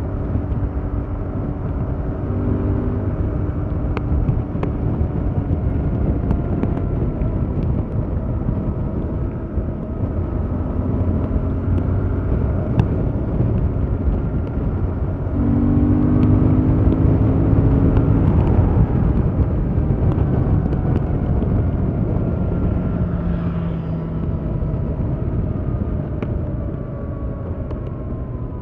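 Yamaha MT-07's parallel-twin engine through its stock exhaust, running under way with wind rush. About halfway through it opens up and gets louder, then eases off toward the end.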